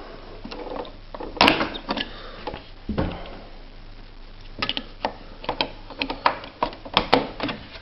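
Knocks and clicks from a Quen-Data Executive 80 electronic typewriter being handled: two separate knocks, then, about halfway through, a run of irregular sharp clicks.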